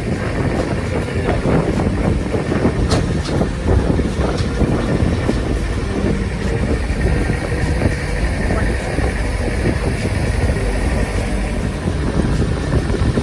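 Long-tail boat engine running steadily at speed, a loud continuous low drone with the rush of wind and water around the boat.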